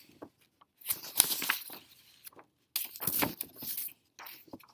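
Scratchy rustling with small clicks, in three bursts of about a second each, like handling or rubbing something against paper.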